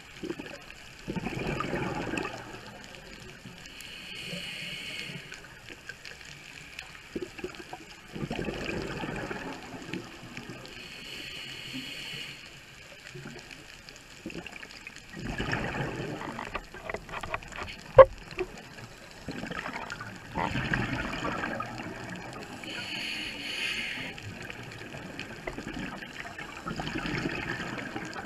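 Scuba diver breathing through a regulator, heard underwater: a short hissing inhale, then a longer rush of exhaled bubbles, about four breaths over the stretch. One sharp click about eighteen seconds in.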